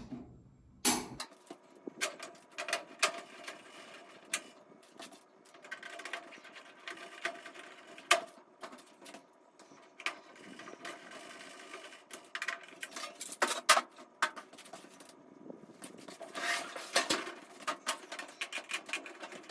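Irregular clicks, knocks and rattles of panels, screws and tools being handled as a top-loading washing machine's control panel is put back together.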